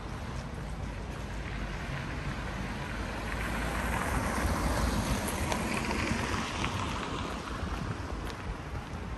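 A vehicle passing by: its noise swells to a peak about midway, then fades away.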